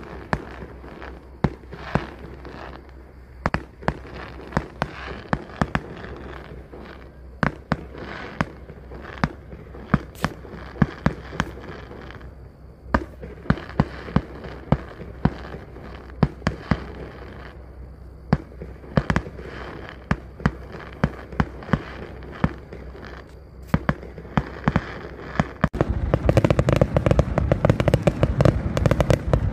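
Fireworks display: aerial shells bursting in an irregular run of sharp bangs, at times several close together. About four seconds before the end, a louder, dense barrage of rapid bangs and crackle sets in and keeps going.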